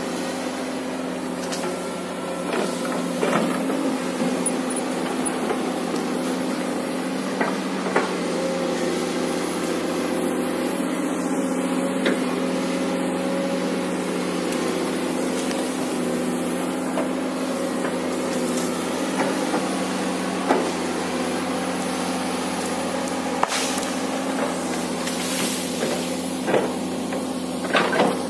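Komatsu PC200 hydraulic excavator's diesel engine running steadily while it clears brush, with a scattering of short sharp knocks and cracks of timber and branches breaking under the bucket.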